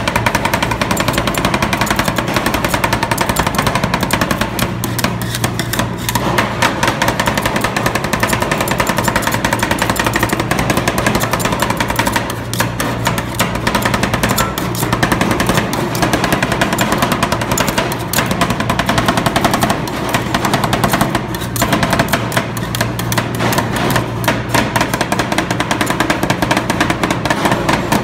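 Metal spatulas rapidly chopping and scraping on the steel cold plate of a rolled-ice-cream griddle, a fast, continuous clacking of metal on metal over a steady hum.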